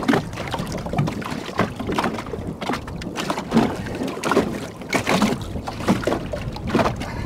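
Water splashing and slapping against a small boat as a hooked catfish is hauled up out of the water on a line, with irregular splashes and knocks throughout.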